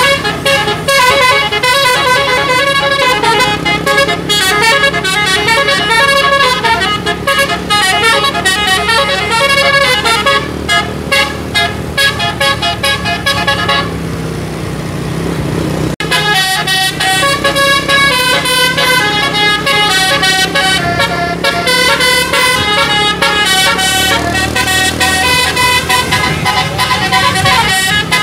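A bus's multi-tone musical air horn ('telolet') playing quick tunes of changing notes. The tune stops for about two seconds midway, leaving only a low hum and noise, then starts again.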